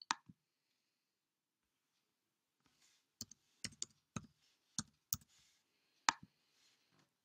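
A computer mouse click, then a quick run of keystrokes as a six-digit code is typed on a computer keyboard, then another, louder mouse click near the end.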